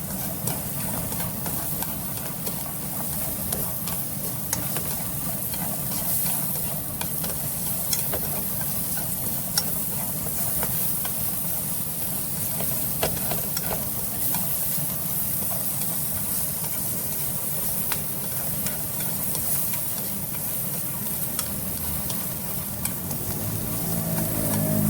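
Carrots stir-frying in a hot pan: a steady sizzle with scattered light clicks of a utensil stirring against the pan, over a steady low hum.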